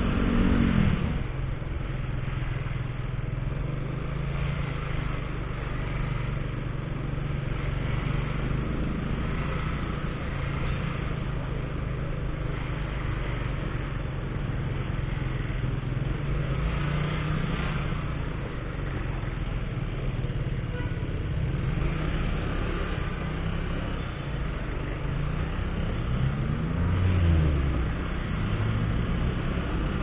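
Motorcycle engine running under way on a city street, its pitch dropping just after the start and rising and falling again near the end as it speeds up and slows, with other traffic around.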